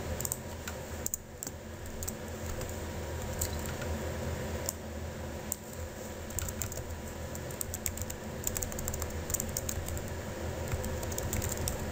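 Computer keyboard typing: irregular key clicks as code is edited, over a steady low hum.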